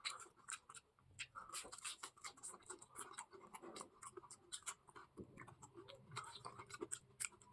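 Faint, irregular clicks and scratches of someone eating: chewing and small mouth sounds.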